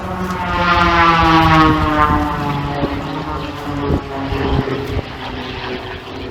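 Propeller airplane flying past, its engine and propeller drone falling steadily in pitch as it goes by, loudest a second or two in.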